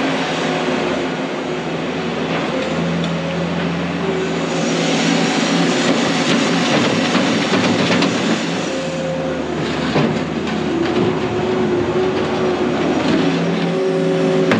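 New Holland LS170 skid steer loader's diesel engine running under load, its pitch rising and falling as it works the bucket and drives, with a few knocks from the loader about two-thirds of the way through.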